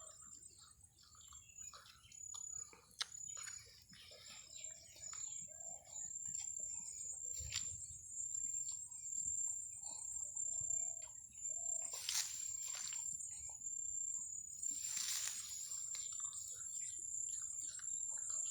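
Small birds chirping over a steady high-pitched insect drone in open farmland, with two brief noisy rustles partway through.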